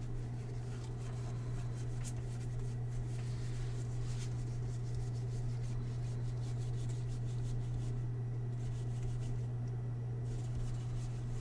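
Faint rubbing and soft ticks of baseball cards being slid and flipped by hand, over a steady low hum.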